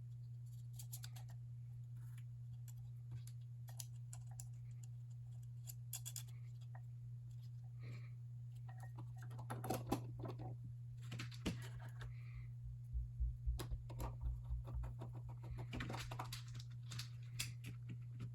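Faint, irregular small clicks and taps of a screwdriver and screws fastening the cover plate to the base of a Meade LX200 Classic telescope, busier in the second half, over a steady low hum.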